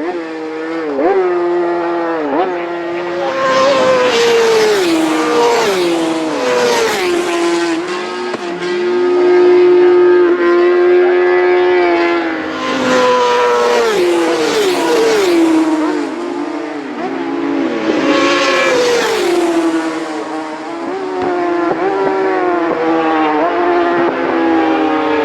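Several road-racing motorcycles passing one after another at full throttle. The engine pitch climbs and then drops sharply again and again as the riders change up through the gears.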